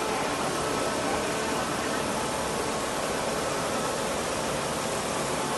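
Automatic fabric cutting table running, its gantry cutting head working over the fabric: a steady mechanical hiss and hum with a few faint steady tones.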